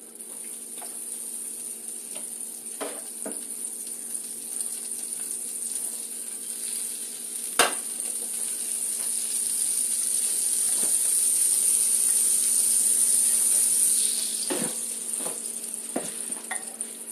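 Butter sizzling in a hot frying pan as it melts. The hiss grows louder, then dies down near the end as beaten omelette egg is poured in. A few clinks of a fork against the pan, the sharpest about halfway through.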